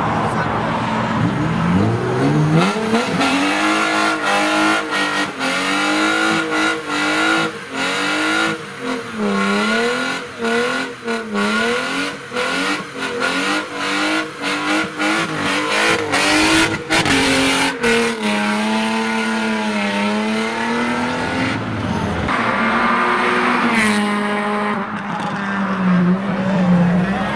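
A tuned car's engine revs hard with its tyres spinning and squealing, the revs swinging up and down, cut through with many sharp cracks. Near the end it settles to a lower, steady note.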